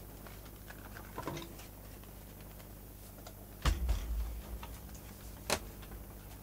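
Handling noise as an opened video recorder is turned over on a bench: a few light clicks, a heavy thump about halfway through as the machine is set down, then one sharp knock near the end.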